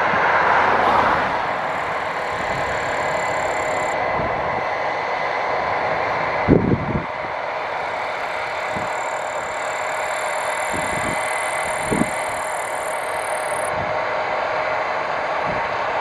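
Case IH Axial Flow 8230 combine running while harvesting barley: a steady mechanical din with a constant whine. A loud low thump comes about six and a half seconds in and a smaller one near twelve seconds.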